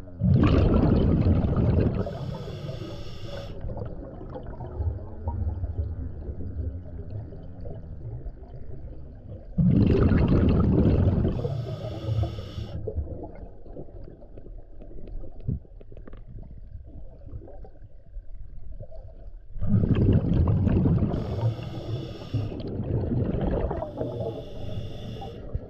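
Scuba diver breathing through a regulator underwater: three loud bursts of exhaled bubbles about ten seconds apart, each followed by a shorter hiss from the regulator, over a low steady underwater rumble.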